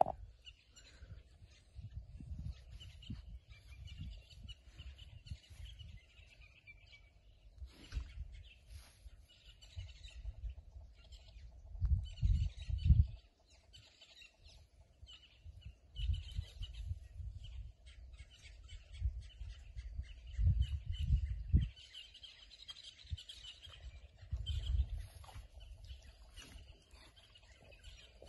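Outdoor ambience of birds chirping, over a faint steady hum. Irregular low rumbles close to the microphone come and go, loudest twice, about twelve and twenty seconds in.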